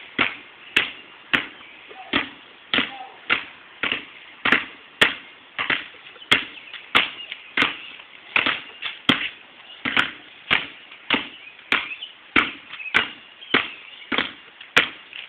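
Two basketballs dribbled on a concrete court, bouncing in a steady rhythm of about two to three bounces a second.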